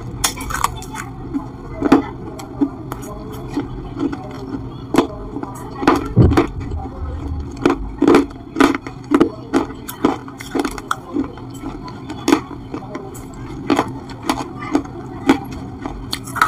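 Eating baked clay pot pieces: sharp, dry crunches as pieces are bitten and chewed, irregular and about one or two a second, close to the microphone.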